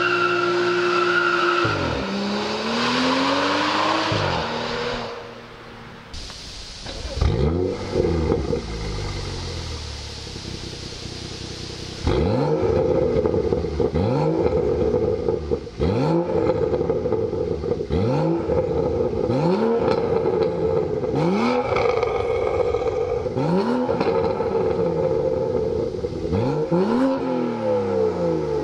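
BMW M235i turbocharged straight-six driven hard, with tyres squealing and the engine revving up through sweeps in the first several seconds. Then, standing still with its Armytrix valved exhaust closed, it gets a dozen or so quick throttle blips, about one every second and a bit, each rev rising and dropping back.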